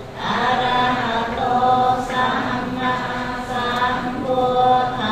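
Buddhist group chanting by many voices in unison: long held notes in phrases, with short breaks between them.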